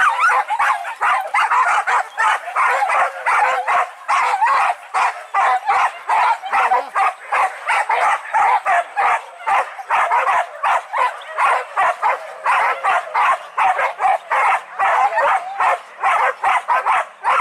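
Hunting dogs on a wild boar hunt barking and yelping in quick, unbroken succession, about three to four barks a second.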